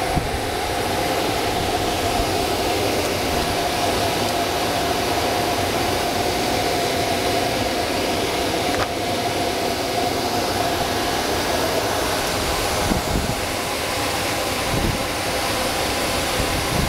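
Car wash vacuum station running: a steady rushing whine with a constant tone to it.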